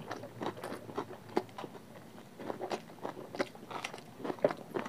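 Two people chewing mouthfuls of rice and egg curry eaten by hand: a steady run of short, irregular wet clicks and smacks of chewing.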